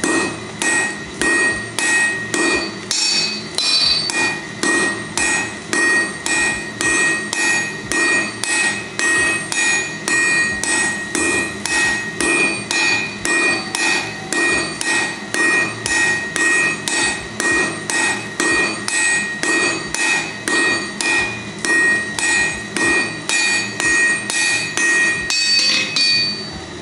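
Sledgehammer and hand hammer taking turns striking a hot steel bar on an anvil: a steady, even rhythm of blows, each followed by the anvil's ringing. This is smith-and-striker forging, drawing the bar down.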